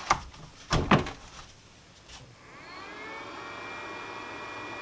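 An AP300 lithium-ion battery clunks into a Stihl battery charger in two knocks. About two and a half seconds later the charger's cooling fan starts with a rising whine and settles into a steady high-pitched whir, the sign that charging has begun.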